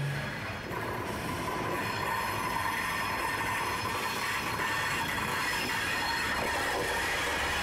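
TEM2 diesel locomotive hauling passenger coaches past at close range, its engine running with a steady high whine from the wheels on the curved track. The low rumble grows near the end as the locomotive comes alongside.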